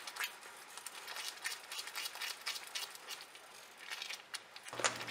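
Silicone spatula stirring and scraping a thick, cooking milk-and-ricotta kalakand mixture in a nonstick pan: quiet, irregular wet clicks and scrapes as the mixture is reduced and kept from sticking to the bottom.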